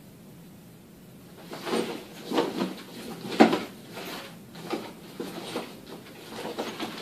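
A backpack being rummaged through: rustling and handling noises in irregular bursts that start about a second and a half in, the loudest about halfway through.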